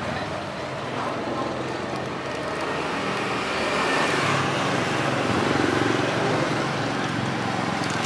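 Steady road traffic noise, swelling a little about halfway through.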